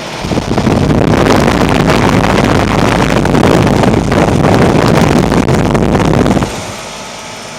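Loud rushing of air buffeting the microphone, building up in about a second and stopping suddenly after about six seconds. Beneath it runs the steady sound of a 2004 Carrier 3-ton heat pump running in heat mode.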